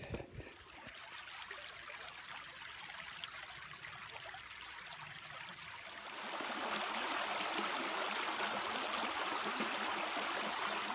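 Creek water flowing steadily, growing louder about six seconds in.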